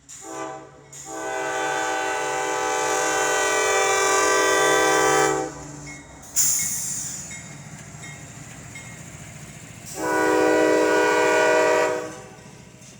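Freight locomotive's multi-note air horn sounding for a grade crossing: a short blast, a long blast of about four seconds, then after a pause another blast of about two seconds. Between the blasts comes a sudden loud hiss, and the low rumble of the passing train runs on under the last blast.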